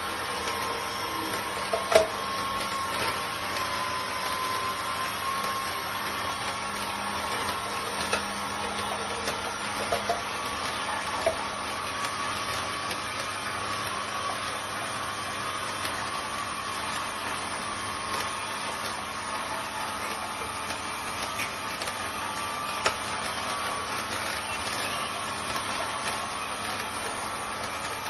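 Electric slow (masticating) juicer's motor running with a steady hum, with a few sharp clicks scattered through it.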